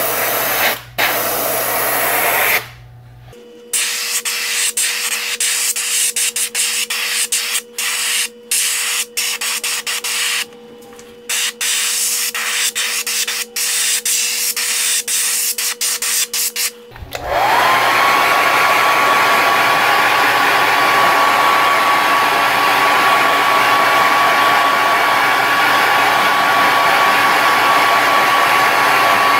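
Airbrush spraying white paint onto a wooden lure in short hissing spurts over a steady low hum. About halfway through, a hair dryer switches on: its whine rises and then holds as a steady rush of air, drying the paint.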